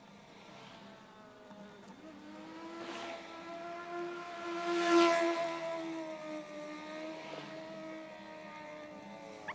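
A car driving past, its engine note swelling to a peak about five seconds in, then dropping slightly in pitch and fading as it goes by.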